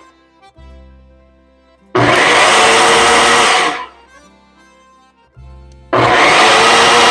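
Countertop blender pulsed in short runs of about two seconds, stopping between them, as it purees roasted tomatoes and vegetables into sauce.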